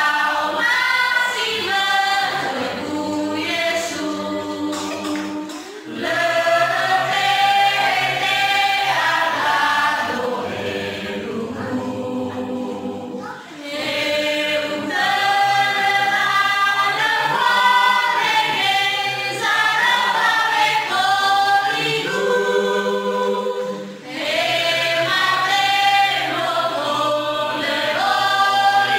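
Mixed church choir of women's and men's voices singing a hymn in parts, phrase after phrase, with three short breaks between phrases.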